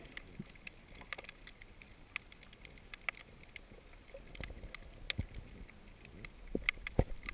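Underwater sound picked up through an action camera's waterproof housing: scattered sharp clicks and crackles over a low water rumble, with heavier rumbling and a few thumps in the last couple of seconds.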